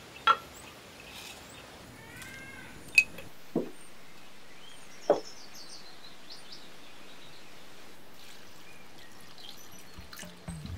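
Clay pots and lids knocking lightly against each other and the wooden table as they are handled, four short knocks in the first five seconds. Birds chirp in the background.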